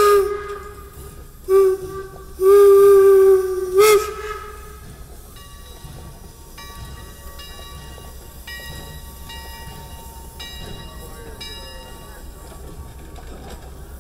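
Leviathan replica 4-4-0 steam locomotive sounding its steam whistle: two short blasts, one long, then one short. Its bell then rings steadily, about once a second, as the locomotive rolls.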